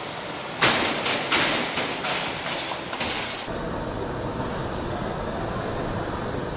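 Car assembly-line machinery noise: a sudden loud burst about half a second in, with several sharp hissing strokes, then an abrupt change to a steady machine hum.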